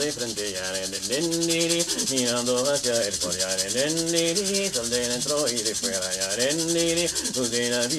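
A male voice singing an icaro, an Amazonian healing chant, in sustained gliding phrases over the fast, steady swish of a shacapa leaf-bundle rattle.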